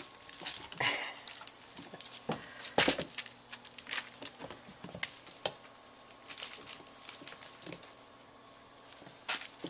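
Kittens playing: irregular light taps, knocks and scrabbling of paws and claws, with a few louder knocks.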